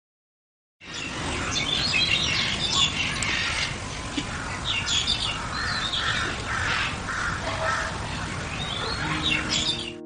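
A dense chorus of many birds chirping and calling over a steady background hiss. It starts abruptly about a second in and cuts off suddenly near the end, with a few lower calls standing out in the middle.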